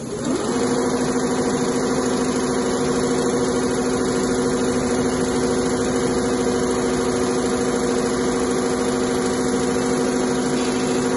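Two-head CNC leather sewing machine running at a steady speed, a hum with a few steady pitches. It speeds up just after the start and winds down at the end.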